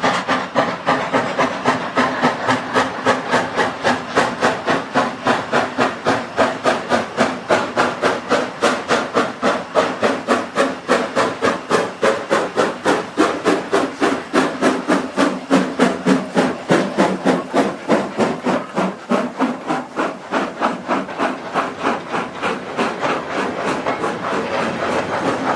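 Austerity 0-6-0ST saddle-tank steam locomotive working hard uphill under load, its exhaust barking in sharp, regular beats about four a second. Near the end the beats fade as the loaded wagons roll past.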